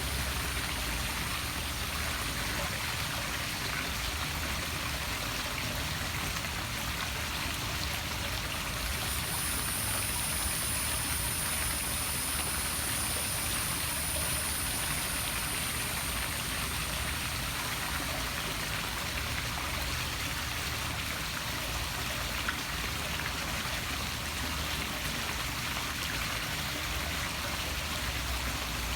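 Poolside waterfall splashing steadily into a swimming pool, an even, unbroken rush of falling water.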